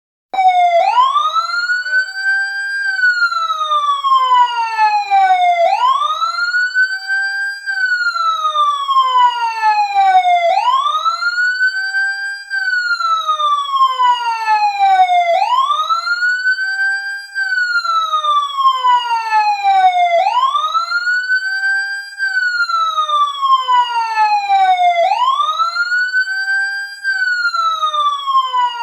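Fire truck siren wailing, switched on suddenly as the countdown timer's alarm at zero. Each cycle rises quickly, then falls slowly, repeating about every five seconds.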